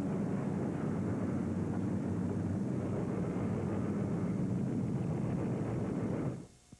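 Steady, dense drone of attacking aircraft engines laid over battle footage, cutting off suddenly about six seconds in.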